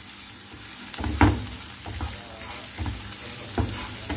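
Chopped garlic sizzling in hot fat in a nonstick frying pan while a spatula stirs it. A few spatula strokes scrape across the pan, the loudest about a second in. The garlic is being sautéed until it turns yellow.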